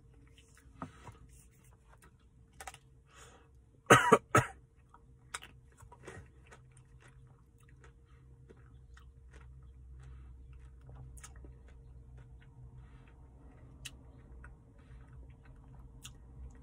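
Mouth sounds of eating a cherry-dipped soft-serve cone: soft licking, lip smacks and chewing clicks, with two loud coughs in quick succession about four seconds in. A steady faint hum runs underneath.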